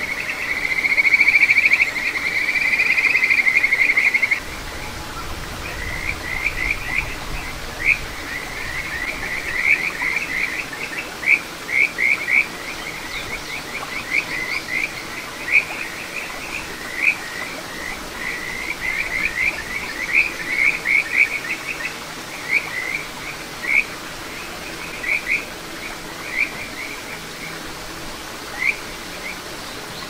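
Kajika frogs (Buergeria buergeri) calling. A loud, high trill rises slightly in pitch for about four seconds and stops, then runs of short, rising whistled notes follow, over the steady rush of the stream.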